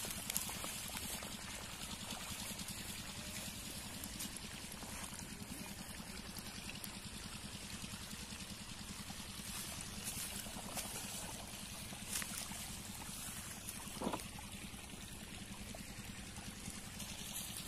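Water pouring out of the open end of a 4-inch lay-flat plastic irrigation pipe into a shallow field channel, over the steady low beat of the diesel engine driving the pump.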